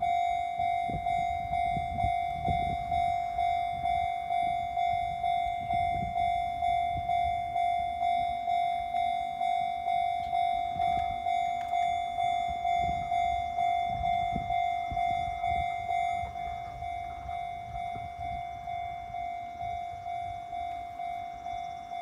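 Japanese railway level-crossing warning bell ringing, a repeated electronic ding a little under two strokes a second, as the crossing barriers lower. About two-thirds of the way through it drops to a quieter level and keeps ringing.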